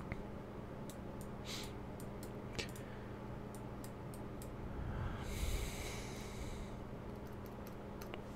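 Scattered faint computer-mouse clicks over a low steady hum. About five seconds in comes a breath out through the nose lasting about a second and a half.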